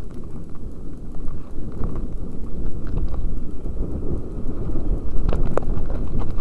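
Mountain bike descending a rocky dirt trail, heard through a helmet-mounted camera: a dense, uneven jumble of low noise from wind on the microphone and the tyres and bike jolting over dirt and stones. Scattered clicks run through it, with two sharper clicks a little after five seconds.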